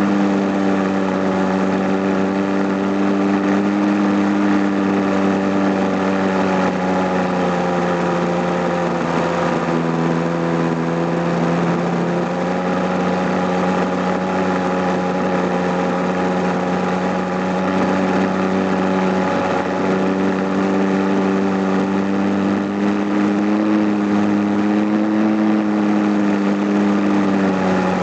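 Radio-controlled model airplane's small engine running steadily in flight, heard from on board over a rush of air, its pitch dipping slightly a few times.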